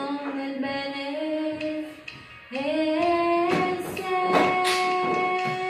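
A female voice singing a song in long held notes. After a brief break about two seconds in, a new phrase slides up into a long held note.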